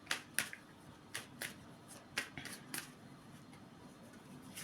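Fortune-telling cards being handled and laid out: a run of short, crisp snaps and flicks, about seven in the first three seconds, then quieter handling.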